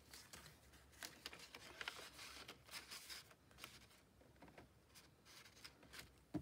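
Faint, intermittent rustling and scraping of paper and card as a photo card is slid into a paper envelope pocket. A single short knock comes right at the end.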